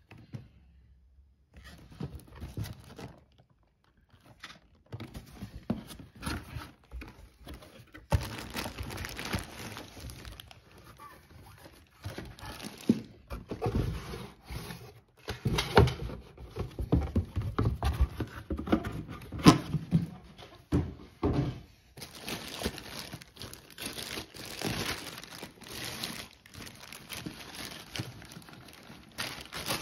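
Irregular clicks, knocks and rustles of a Canon 514XL-S Super 8 movie camera being handled close to the microphone.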